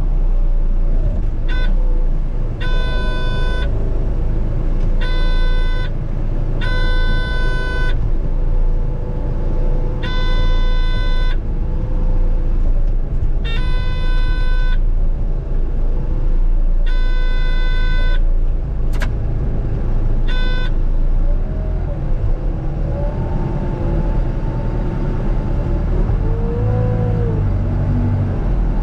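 Heavy diesel equipment running in a yard, with a steady low rumble throughout. A horn-like tone sounds in about eight short blasts of about a second each at uneven intervals, and a rising and falling whine comes in near the end.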